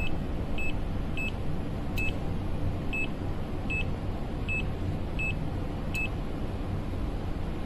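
HABOTEST HT121 pen-type multimeter beeping in its three-phase rotation test mode: short high beeps repeating about every two-thirds of a second, stopping about six seconds in.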